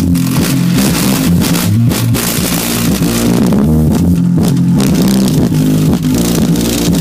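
Loud music with a heavy bass line moving in steady steps, plus guitar.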